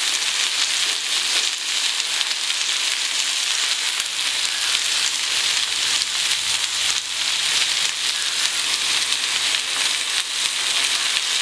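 Sliced onions frying in hot oil in a pan: a steady sizzle.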